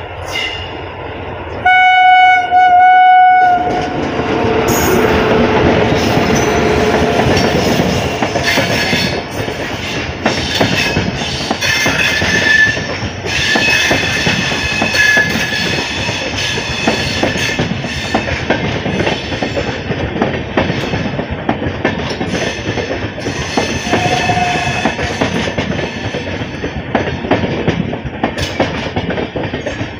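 An Indian Railways electric locomotive sounds its horn in one loud blast of about two seconds as it approaches. The express train's coaches then pass close by at speed with a steady clickety-clack of wheels over rail joints. Thin wheel squeals rise over the rattle about halfway through.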